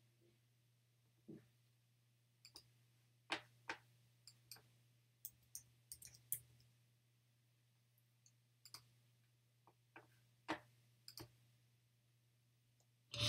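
Near silence with faint, irregular clicks and taps, small objects being handled on a table, over a steady low hum.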